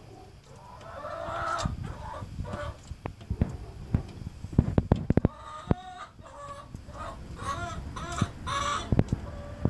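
Hens clucking in short calls, with a run of sharp taps from pecking beaks, several in quick succession around the middle and one more near the end.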